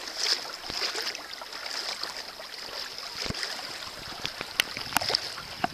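Shallow sea water lapping and splashing right at the camera held at the surface, with three sharp clicks in the last second and a half.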